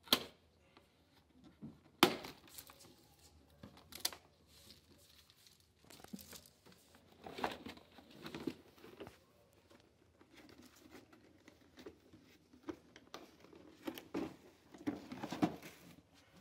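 Plastic packing straps coming off a cardboard drill box with three sharp snaps about two seconds apart. Then the cardboard box is handled and opened, with crinkling, scraping and rustling.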